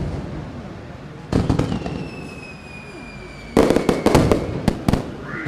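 Fireworks going off: a burst of crackling bangs about a second in, then a rapid cluster of sharp bangs about three and a half seconds in and two more single cracks just after. A thin whistle slowly falling in pitch runs between them.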